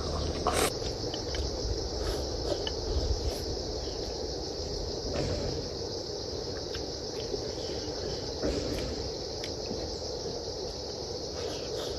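Steady, high-pitched chorus of insects chirring, with a few faint clicks scattered through it.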